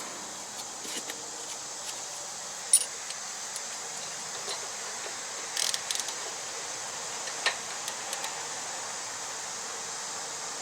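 Hand tools on metal: scattered light clinks and taps, the loudest about three seconds in, a quick cluster near six seconds and another near seven and a half, over a steady hiss. This is a wrench working the rear brake adjuster bolt on a Yamaha Moto-4 ATV.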